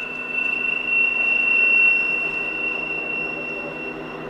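Wheels of a Matterhorn-Gotthard-Bahn HGe 4/4 II rack-and-adhesion train squealing: one high steady tone that swells about a second in and fades near the end, over the train's low running noise.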